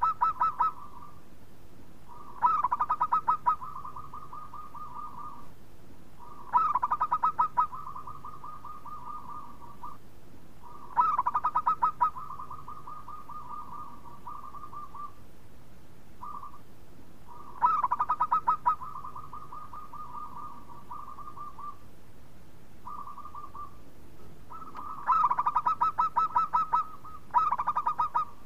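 Zebra dove (perkutut) cooing in repeated phrases a few seconds apart. Each phrase is a quick stuttering run of clipped notes that rolls into a longer purring coo, and two phrases come close together near the end.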